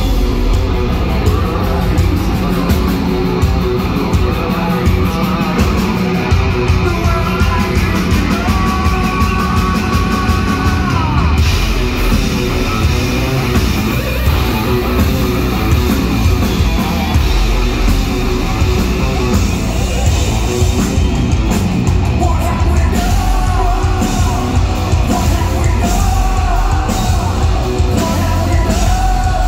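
Live hard rock band playing loud through the PA, heard from the audience: electric guitars, bass and a drum kit with a male lead singer. A long held high note stands out about a third of the way in.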